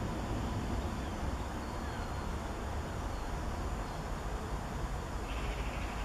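Steady outdoor background noise: a low rumble under a faint hiss, with a few faint high chirps in the first half.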